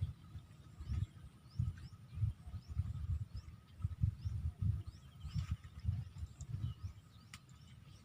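Outdoor field ambience: irregular low thumps and rumble, with faint short rising bird chirps repeating and a steady faint insect whine.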